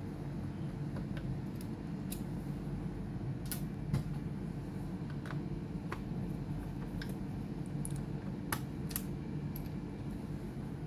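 Small hand tools clicking and tapping on a laptop's plastic and metal parts, a dozen or so light separate clicks at uneven intervals, over a steady low hum.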